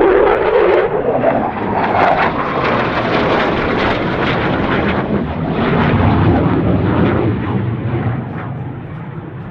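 Fixed-wing aircraft flying past. Its engine note glides in pitch over the first couple of seconds, then gives way to a steady loud rushing noise that eases off slightly near the end.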